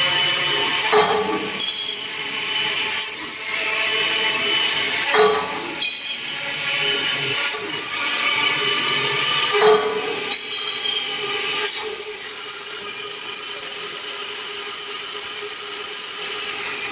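Metal-cutting machine running: a steady hiss and whine with several steady tones, and short louder clatters about a second, five seconds and ten seconds in.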